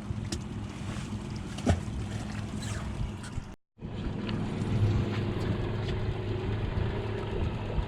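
Wind on the microphone and water noise aboard a fishing boat, with a few light knocks. The sound cuts out completely for a moment about halfway through.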